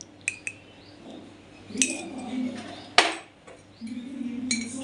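Metal spoon clinking against a glass salt jar and a steel bowl as salt is spooned onto fish: scattered light clinks, some briefly ringing, with the loudest a sharp knock about three seconds in.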